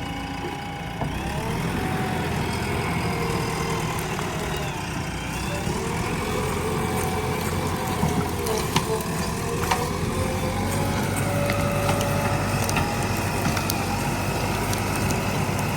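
JCB 3DX backhoe loader's diesel engine running steadily under load, with whining tones that slide up and down as the machine works and a few sharp clicks.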